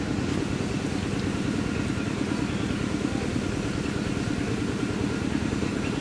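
Steady low rumbling background noise, even in level throughout, with nothing sudden standing out.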